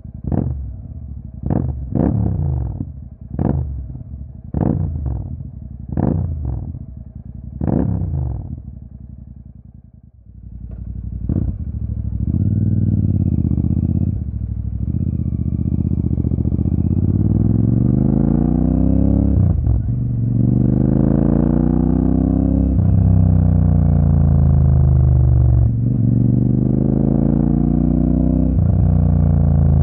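Royal Enfield Super Meteor 650's 648 cc parallel-twin through a Rhino Racing aftermarket exhaust, blipped in a quick series of sharp revs at standstill. It then pulls away and accelerates up through the gears, the engine note rising on each gear with a brief dip at every change.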